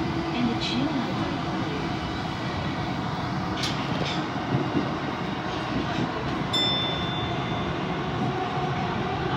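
Tokyo Metro Ginza Line 1000-series train running through a tunnel, heard from inside the lead car: a steady rumble of wheels on rail, with a few light clicks and a short high tone about two-thirds of the way through.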